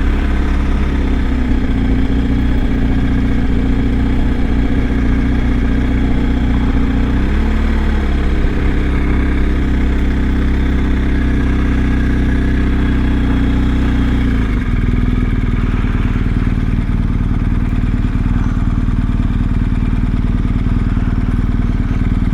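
BMW R1250's boxer-twin engine running steadily under way, with road and wind noise over it. The engine note shifts about seven seconds in and changes again about halfway through.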